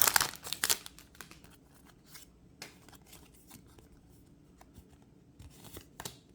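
Pokémon trading cards and their foil booster-pack wrapper being handled: a burst of crinkling and rustling in the first second, then scattered soft clicks and slides as the cards are moved.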